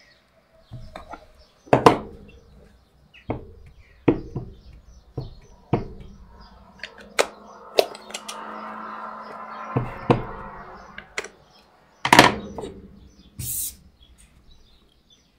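Clear acrylic stamp block and card being handled on a desk: irregular taps and knocks as the block is picked up, set down and pressed, with a stretch of sliding and rustling in the middle. The loudest knocks come about two seconds in and again about twelve seconds in.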